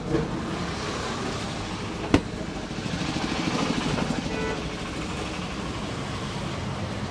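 Roadside barber's hands working a head and back massage: one sharp click about two seconds in, then a quick run of rapid strokes from about three to four and a half seconds, over steady street traffic noise.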